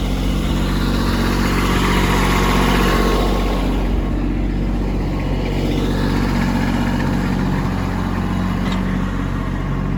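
Engine running steadily, its noise swelling about two to three seconds in and then easing off.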